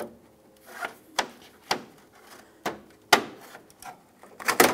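Push clips on a Ford Flex grille's upper trim piece snapping loose one after another as an angled trim tool pries the piece off. A series of sharp plastic clicks and snaps, with a quick cluster of louder ones near the end.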